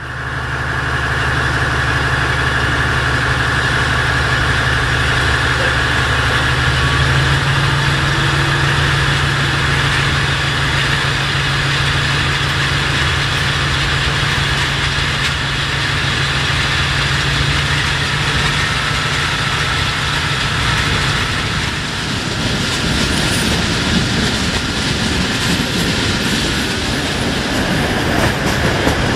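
Regional train heard from an open carriage doorway: the diesel-hydraulic locomotive's engine gives a steady low hum with a thin whine above it. About two-thirds of the way in the engine hum fades and the rumble and clicking of the wheels on the rails takes over.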